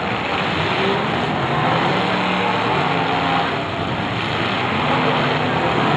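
Several demolition derby cars' engines running and revving together, a loud, steady mix of engine noise.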